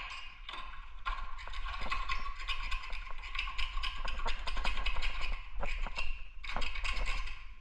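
Rapid, irregular light tapping and clicking, many small hard knocks in quick succession.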